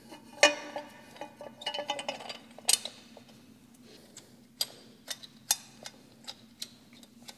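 Light metal clicks and clinks of an exhaust header flange and its nuts being fitted by hand onto the exhaust studs, about ten in a string, two of them ringing briefly in the first two seconds.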